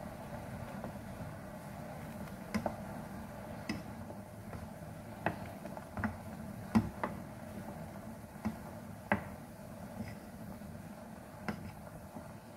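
A wooden spoon knocking and scraping against the side of an enamel pot while stirring boiling black beans: about a dozen sharp, irregular clicks, the loudest a little past the middle, over a steady low hum.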